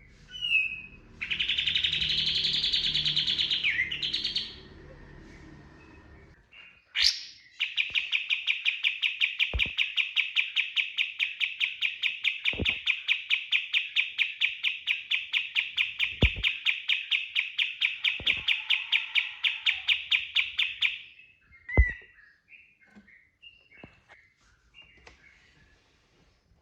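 Kapas tembak songbird singing: a short dense phrase, then a long rapid trill of about six even notes a second held for some thirteen seconds, the bird's rapid-fire 'shooting' song. A few soft thumps come through during the trill, and scattered short chirps follow it.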